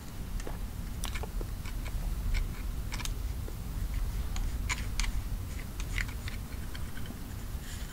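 Steel jointing spatula scraping and pressing joint filler into the joint between granite curbstones: irregular small gritty scrapes and clicks over a low steady rumble.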